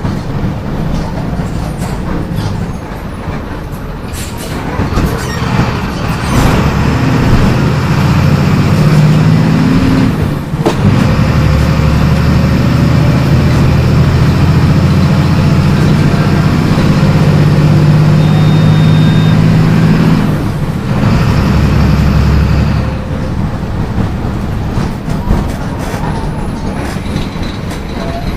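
Bus's MWM 6.12 TCAE six-cylinder turbo diesel running under load. About six seconds in it revs up, dips briefly near ten seconds, then pulls at steady high revs until about twenty seconds in, after which it eases off to lighter running.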